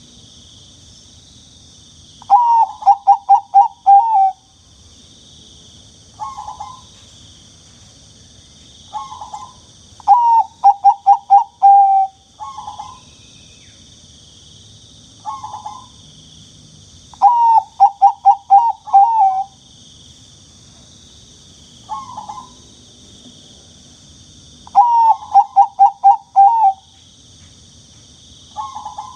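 Zebra dove (perkutut) cooing song: four phrases of about six quick, pulsed, rolling coos, repeated every 7 to 8 seconds, with short single notes between them. A steady high hiss runs underneath.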